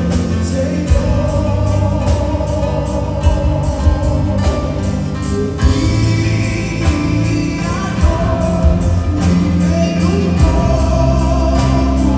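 Live gospel music: singing over a band with a steady beat.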